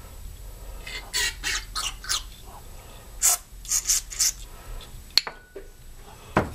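Short hissing spurts from an aerosol can of carburetor cleaner, about eight in two quick groups, sprayed into a small-engine carburetor's jets and passages to clean them. A click and then a sharp knock near the end.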